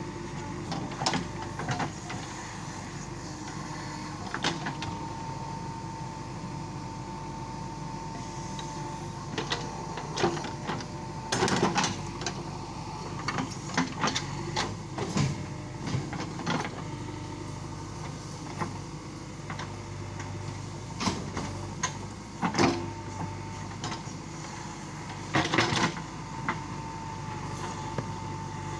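JCB 3DX backhoe loader's diesel engine running steadily under digging load, as the backhoe bucket works a trench in soil. A high steady whine comes in for a few seconds early on and again in the last few seconds, and irregular knocks and clunks from the arm and bucket punctuate it, thickest around the middle.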